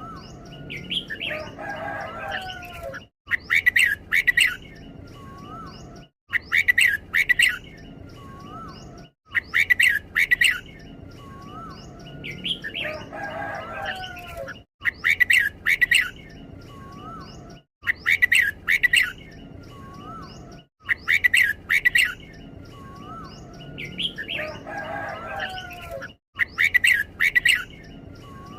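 Red-whiskered bulbul singing: loud, short bright phrases repeated every few seconds, in the doubled style that Thai keepers call 'เบิ้ล', with a lower warbling phrase now and then.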